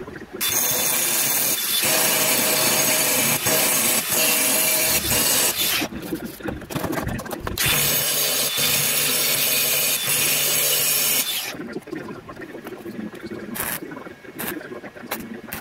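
Wire-feed welder arc crackling steadily through two welds, the first about five seconds long and the second about three and a half, each starting and stopping abruptly.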